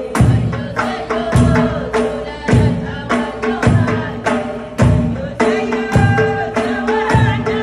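Amazigh Ahwach music: frame drums beat a deep stroke about once every second and a bit, with lighter strokes between, under a group of voices singing together.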